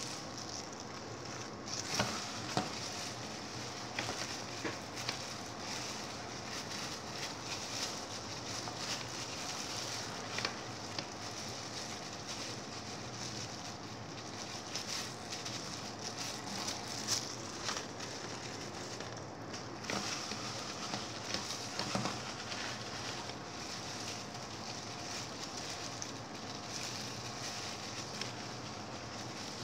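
Clear plastic food-prep gloves crinkling and a wet minced pork mixture squelching as hands knead and squeeze it into patties over a stainless steel bowl, a steady crackle with many small clicks.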